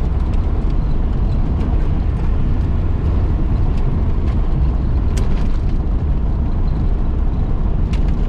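1972 Datsun 1600 under way in fourth gear, heard from inside the cabin: a steady, low engine and road rumble with a few faint ticks.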